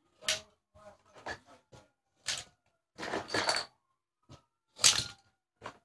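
Toy cars crashing into each other: a series of about six short clattering knocks and scrapes spread irregularly, the loudest a little before the end.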